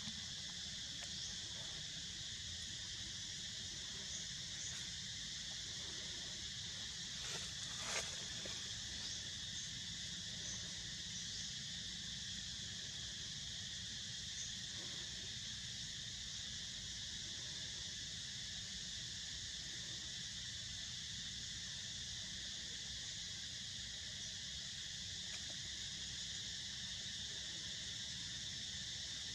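Steady outdoor insect chorus, a constant high-pitched buzzing drone, with a faint low rumble beneath. A couple of short clicks sound about seven and eight seconds in.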